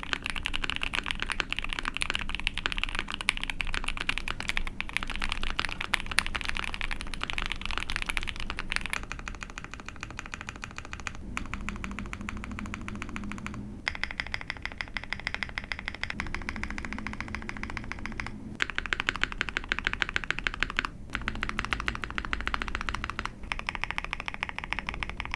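Typing on a mechanical keyboard, an ai03 Vega 65 with a POM plate, lubed linear Black Cherry Pie frankenswitches (Zaku and Husky stems) and GMK keycaps: a dense run of quick key strokes. About nine seconds in it changes to the modifier keys pressed back to back, in runs broken by short pauses.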